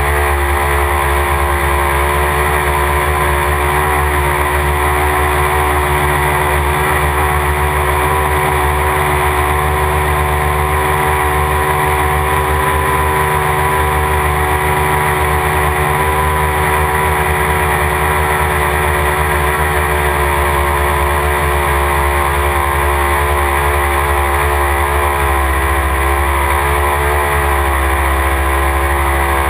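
Motor and spinning rotors of a radio-controlled copter, picked up by the camera it carries in flight: a loud, steady, many-toned whirring hum. The pitch wavers slightly near the end as the throttle changes.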